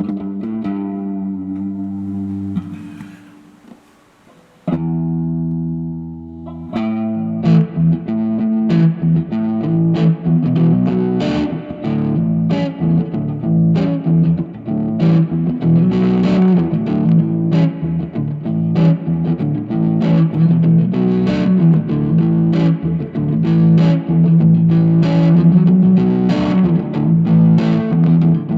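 Electric guitar played through a Vox AC10C1 valve combo amp. Held chords ring and fade almost to quiet about four seconds in, a new chord is struck soon after, and from about seven seconds a steady rhythmic part is played.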